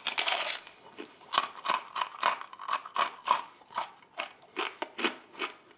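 A person biting into a thin, crisp, burnt pizza crust with a loud crunch, then chewing it open-mouthed in short crunches two or three times a second.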